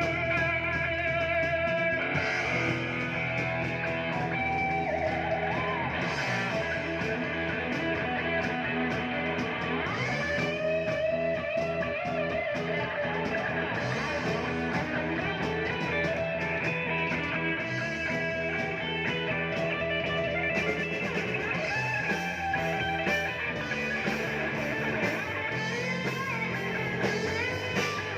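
Rock band music in an instrumental stretch, led by electric guitar playing a lead line with sliding and bending notes over the band.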